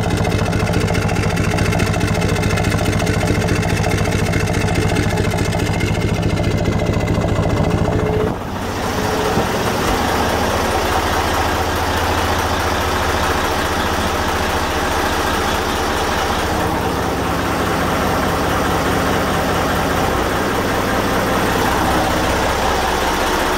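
Yamaha MD201KHY inboard marine diesel engine running steadily. About eight seconds in, the sound changes from the engine heard outside the hull to the engine heard close up over the open engine compartment, fuller and noisier.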